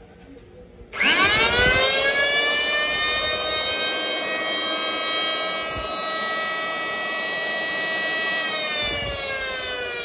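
Electric hand planer, 710 W and 220 V, switched on about a second in. Its motor and cutter drum spin up fast to a steady high whine. It is switched off near the end, and the pitch falls as it winds down.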